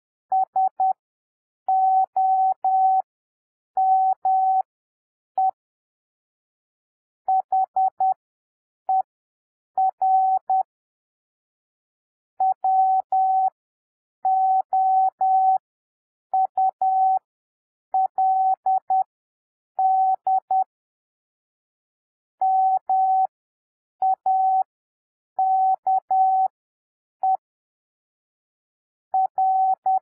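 Computer-generated Morse code practice tone, one steady pitch keyed on and off in dots and dashes, spelling out the words "so some her would make". The characters are sent at 10 words per minute with long gaps between letters and words, for an overall 7 wpm.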